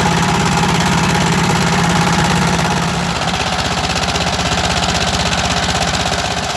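Small rice milling machine running with a rapid, even mechanical pulse; about three seconds in its low steady hum drops away and the pulsing comes through more plainly.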